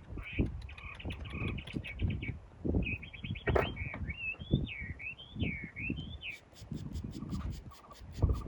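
A bird calling: short repeated chirps, then a warbling whistle that rises and falls several times for about three and a half seconds, over irregular low knocks and scrapes.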